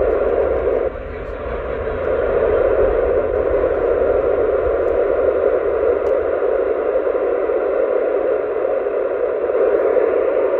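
FM receiver static from a mobile two-metre radio tuned to the AO-91 satellite downlink on 145.960 MHz: a steady hiss with no voice on the channel. It drops about a second in, then builds back up.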